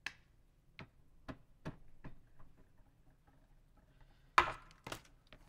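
Sparse faint clicks and taps for the first few seconds, then a short burst of plastic packaging being crinkled about four and a half seconds in, the loudest sound here.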